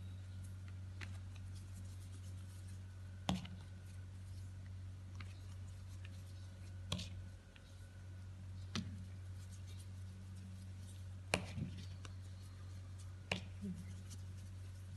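Hands pinching off and shaping balls of bread dough, with a few sharp clicks and taps now and then over a steady low hum.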